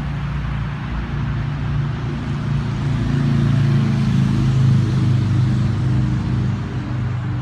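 A motor vehicle engine running steadily with a low hum, swelling a little about three to five seconds in.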